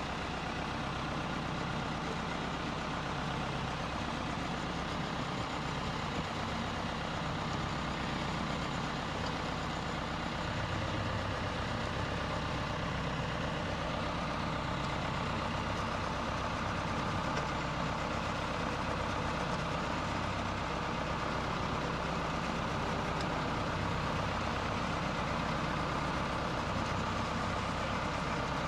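Diesel engine of an RNLI launch tractor idling steadily, a low hum under a noisy wash that grows a little louder toward the end.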